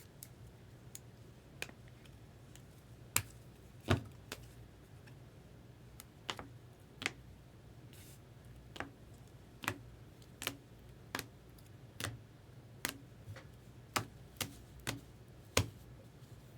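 Sharp, irregular clicks and taps, roughly one or two a second and more frequent in the second half, from trading cards being handled and set down on a table, over a faint steady low hum.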